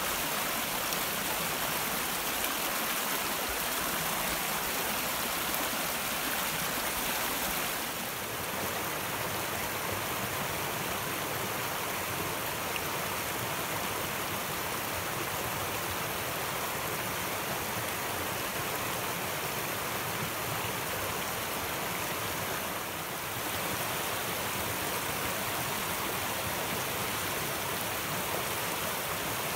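Small rocky mountain stream rushing over stones and low cascades: a steady, full rushing of water, its tone shifting slightly twice as the shot moves to another stretch of the brook.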